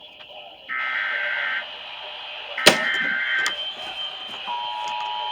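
Emergency Alert System SAME header: two short bursts of screeching data tones about a second apart, with a sharp click before the second. About four and a half seconds in, the steady two-tone EAS attention signal begins and holds, marking the start of a test alert.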